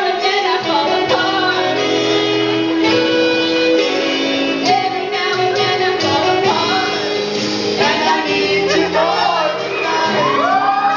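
A young woman singing into a microphone over instrumental backing music, amplified in a large hall. Near the end a young man's voice comes in, turning it into a duet.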